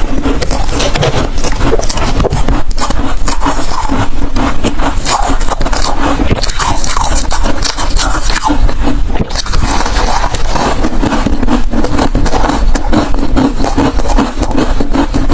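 Hard freezer ice being chewed close to the microphone: a dense, unbroken run of crunches and crackles.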